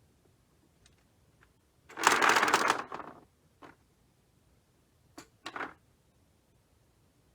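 Arrow coin clock's mechanism letting its coins go: a rattling clatter of coins tumbling for about a second, about two seconds in, followed by three or four single clicks of coins dropping.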